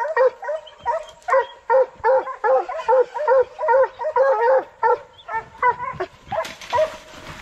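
Coonhounds in a chain-link pen barking fast and excitedly, about three short barks a second, thinning out after about five seconds.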